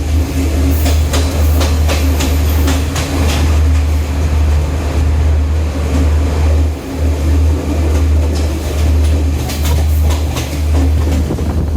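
2019 Chinese-built diesel multiple unit train running along the line, with a heavy steady low rumble. Clusters of sharp wheel clacks over the rail joints come in the first few seconds and again near the end.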